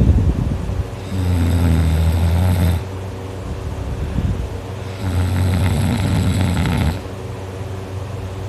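A sleeping fifteen-year-old snoring loudly: two long snores, each lasting about two seconds and about four seconds apart, with quieter breathing between.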